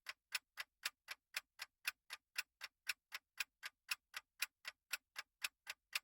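Countdown-timer sound effect: an even clock ticking, about four ticks a second.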